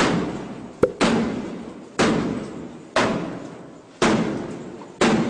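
Heavy blows against a door, about one a second, each a loud bang that rings out and fades before the next, with one short sharp click after the first.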